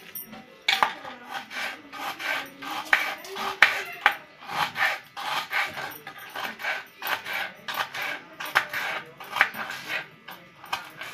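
Knife slicing an onion on a chopping board: a run of short cuts and taps of the blade against the board, a few each second and unevenly spaced.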